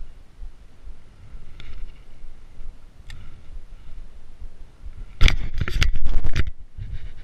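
Loud scraping and crackling of clothing rubbing directly over the body-worn camera's microphone, lasting about a second and a half from about five seconds in. Before it, only a faint low wind rumble and a few soft ticks.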